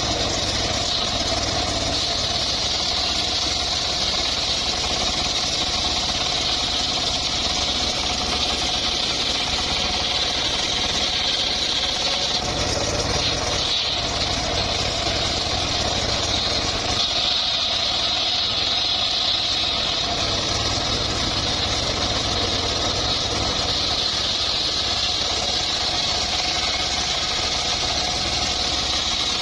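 Engine-driven wood saw running steadily through mahogany, a constant engine rumble under a bright high cutting whine.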